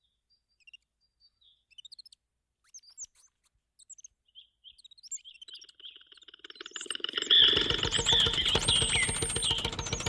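Scattered short bird-like chirps. From about five seconds in, a fast rattling clatter with whistling tones over it swells up and turns loud.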